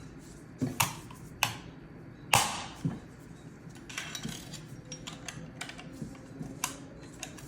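Steel parts of an SKS rifle clicking and knocking together as the dust cover is fitted onto the receiver. A few sharp metallic clicks come in the first three seconds, the loudest about two and a half seconds in. A run of light ticks and rattles follows.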